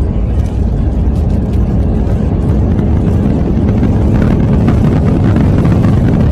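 Airliner cabin noise during the landing rollout: a loud, steady, deep rumble of engines and the aircraft running along the runway, growing a little louder after about four seconds.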